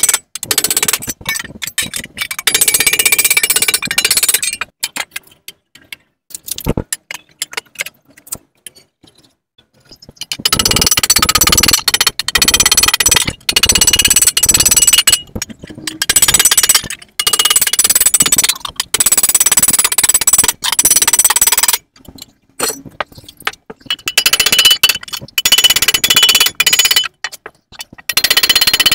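Hand hammer beating the edge of a sheet-metal pit bike seat pan against a steel stand, in fast runs of ringing metallic blows. The hammering breaks off for a few seconds about a third of the way in, then resumes.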